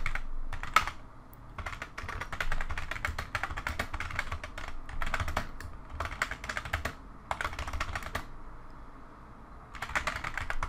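Typing on a computer keyboard in quick bursts of keystrokes with short pauses between, and a longer pause shortly before the end.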